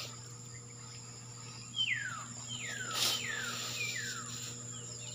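A bird calling a run of quick whistled notes, each sliding sharply down in pitch, several in a row starting about two seconds in, over a steady high insect drone.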